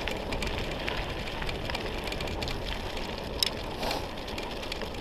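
Wheels of a dog-drawn dryland rig rolling over a dirt and gravel track: a steady gritty rolling noise with scattered small ticks and rattles, and a couple of sharper clicks about three and a half seconds in.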